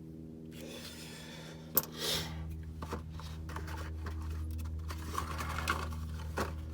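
Sharp metallic clicks and handling noises from hand tools working on a spark plug, a few separate clicks over a steady low hum.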